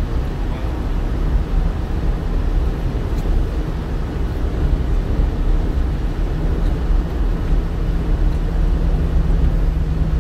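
Steady road noise inside a car at highway speed: the rumble of tyres and engine. A low steady hum joins in about seven seconds in.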